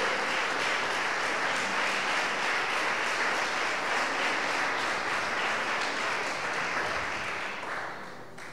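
Congregation applauding steadily, then dying away over the last second or so.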